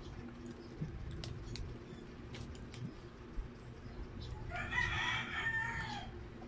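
A rooster crows once, for about a second and a half, starting a little past the middle. Before it, faint clicks of eating by hand.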